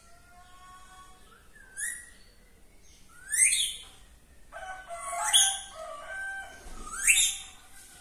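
Rose-ringed parakeet giving loud, harsh screeches that sweep sharply upward in pitch, four of them about two seconds apart. Fainter whistled notes sound between them.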